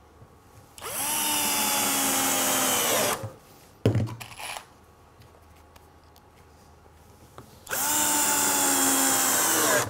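Cordless drill/driver running in two bursts of about two seconds each, driving screws through pine into plywood, each run starting and cutting off abruptly. A short knock comes between the two runs.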